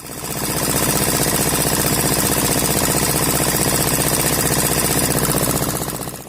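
An engine running steadily at an even speed with a rapid, regular knocking beat. It fades in at the start and fades out at the end.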